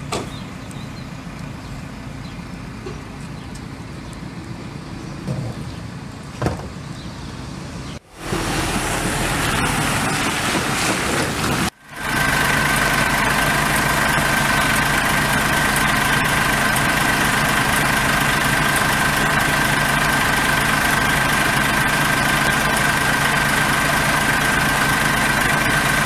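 A truck engine running steadily with an even high whine: a flatbed recovery truck with its bed tilted down, ready to load a car. Before this, a quieter stretch with a couple of knocks breaks off abruptly twice.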